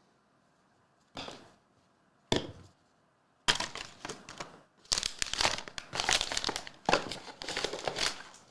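Crinkly packaging being handled and crumpled: two short rustles, then a run of dense crinkling from about halfway through.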